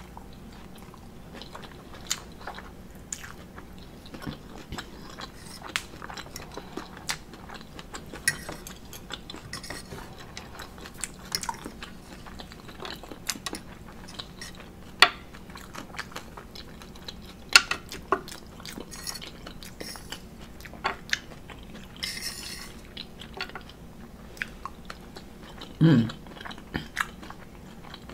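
Close-up eating sounds: chewing and mouth sounds of someone eating an omelet, with a metal fork clinking and scraping on a ceramic plate in scattered sharp clicks. A brief low hum near the end.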